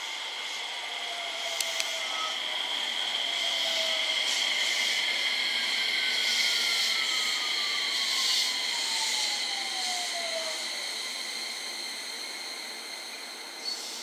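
JR West 227 series electric train's VVVF inverter whine falling steadily in pitch as the train slows to a stop, with steady high tones above it.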